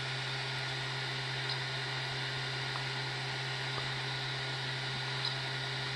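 3D printer's cooling fans running steadily: an even hiss over a constant low hum, with a few faint ticks.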